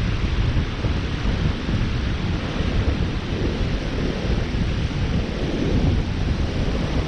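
Strong wind buffeting the microphone in a steady low rumble, with the rush of breaking surf behind it.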